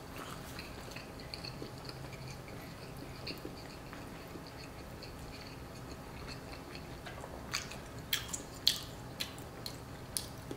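A person chewing butter chicken with his mouth close to the microphone: soft chewing, then a run of sharper mouth clicks and smacks from about seven seconds in.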